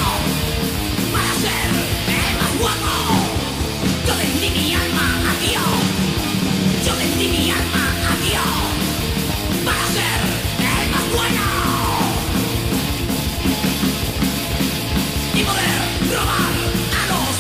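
Thrash/heavy metal song: loud distorted electric guitars and drums, with shouted vocals.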